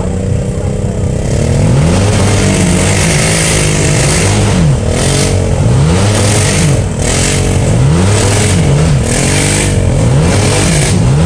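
Off-road vehicle's engine revving up and down over and over, about once a second, as it spins its wheels trying to climb out of a mud hole it is stuck in, with short bursts of hiss between the revs.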